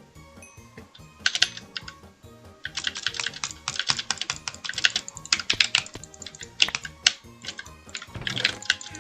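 Computer keyboard typing: a short flurry of keystrokes, then a few seconds of rapid, fast typing with sharp clicks. Background music plays underneath.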